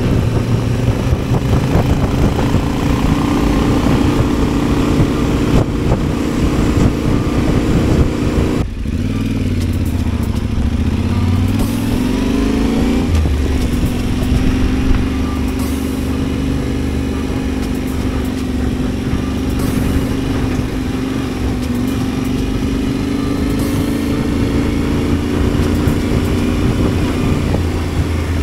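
Adventure motorcycle engine running while riding. About nine seconds in the engine note drops suddenly, then rises and falls over the next few seconds before holding a steady pitch.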